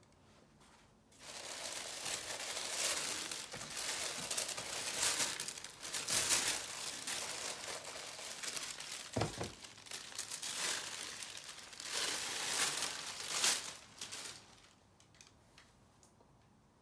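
Packing paper crinkling and rustling as it is pulled out of a shoebox, from about a second in until near the end, with a low thump about nine seconds in.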